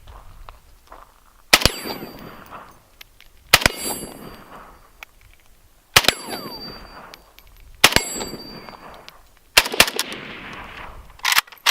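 Unsuppressed rifle shots in 7.62×39 at a stainless steel plate, fired about every two seconds with the last two close together. Each shot is followed by the steel plate ringing with a high, fading ding and an echo.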